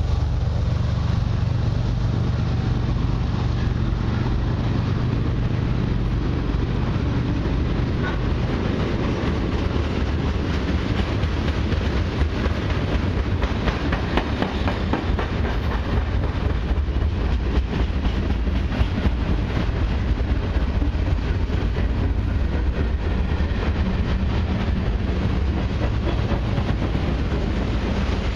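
Freight train cars rolling past: steady rumble and clatter of steel wheels on the rails, with clicking as the wheels cross rail joints. A low steady diesel hum, the train's mid-train locomotive moving away, fades over the first few seconds.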